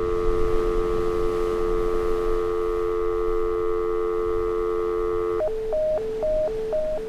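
Telephone dial tone: a steady two-note hum held for about five seconds, then breaking into quick, evenly spaced beeps about two a second, like a busy signal.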